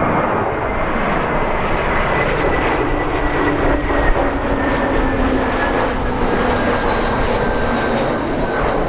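Airbus A321 jet airliner passing on its landing approach: a steady, loud engine rush with whining tones that slowly fall in pitch.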